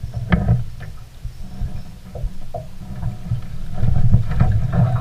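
Knocks and thumps inside a small fishing boat with a low rumble as a hooked bass is netted and brought aboard, busiest and loudest near the end.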